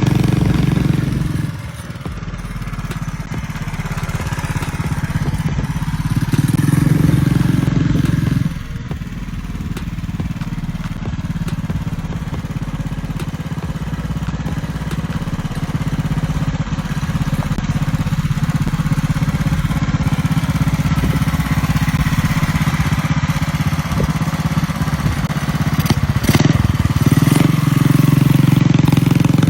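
Engine idling, revved up three times: briefly at the start, again about six seconds in, and near the end.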